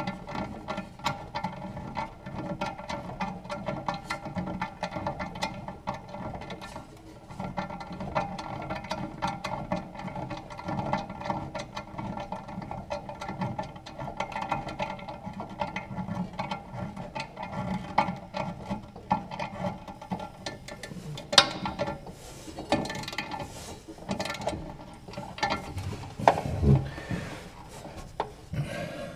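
Socket ratchet wrench clicking in rapid runs, tightening the nuts on the bolts of an impeller kit on a snow blower's impeller blade. Near the end come a few sharper metal knocks.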